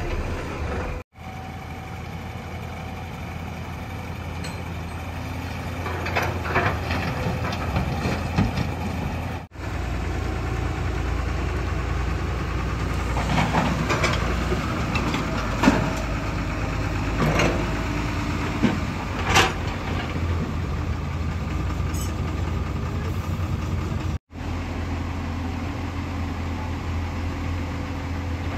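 Heavy diesel engines of earthmoving machines and trucks running steadily, with scattered sharp knocks, mostly in the middle stretch.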